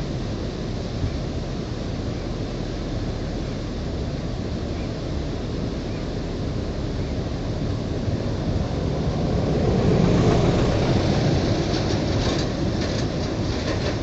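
Steady rush of a tall waterfall. A low rumble swells in about two-thirds of the way through, peaks, then fades, with a few faint clicks near the end.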